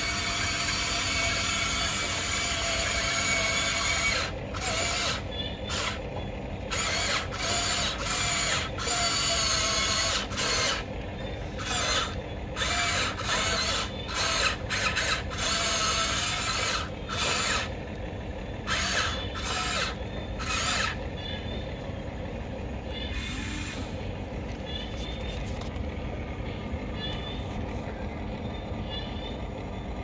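Huina 1594 RC excavator's electric motors and gears whirring in short start-stop bursts as the boom, arm and bucket are worked up and down, about a dozen times. After about 21 seconds only a steady low hum with faint ticking remains.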